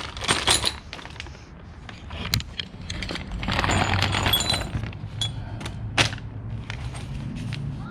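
Metal motorcycle crash bars and their mounting hardware being handled: scattered sharp clicks and knocks, with a longer rustle of packaging about three and a half seconds in, over a steady low hum.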